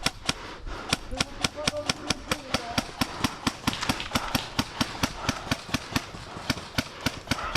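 Airsoft replica firing a steady stream of rapid semi-automatic shots, sharp clicks at about five a second.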